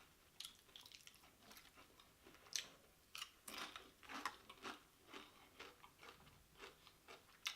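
A person chewing a mouthful of loaded nachos, the tortilla chips crunching in faint, irregular short crackles.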